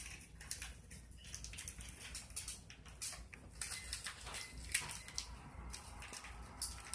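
Faint, irregular rustling and light clicks of hands handling a small plastic object.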